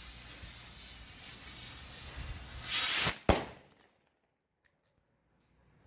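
Firework rocket's fuse hissing steadily, then the rocket motor catching with a louder rush a little under three seconds in, followed by a single sharp bang; the sound dies away soon after.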